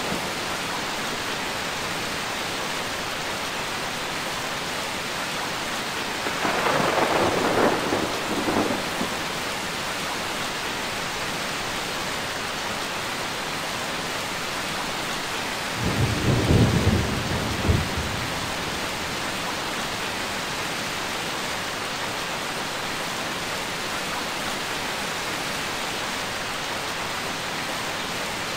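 Steady heavy rain hissing, with thunder rumbling twice, about six seconds in and again, deeper and louder, around sixteen seconds in.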